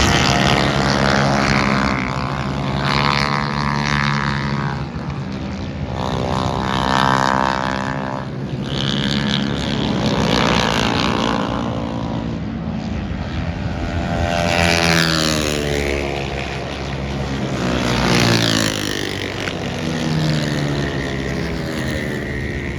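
High-revving engines passing one after another, the pitch rising and falling as each one goes by.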